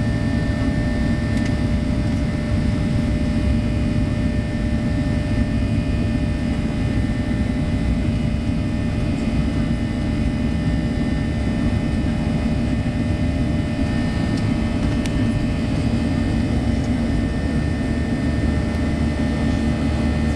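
Steady jet engine and airflow noise inside a Boeing 737-800's cabin: an even, deep roar with a faint steady whine above it.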